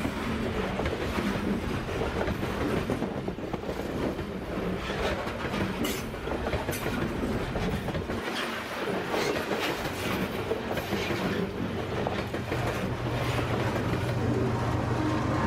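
Canadian Pacific freight cars rolling past close by: a steady rumble of wheels on rail with a running clickety-clack of wheels over rail joints. A steady low hum comes in near the end.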